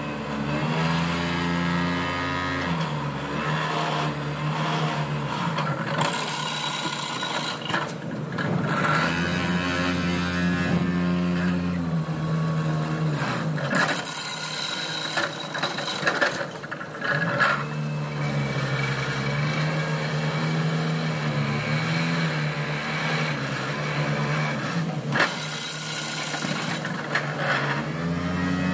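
Diesel engines of tracked hydraulic excavators running under load, their pitch rising, holding and falling in long spells as they work, with a few short spells of high hissing noise.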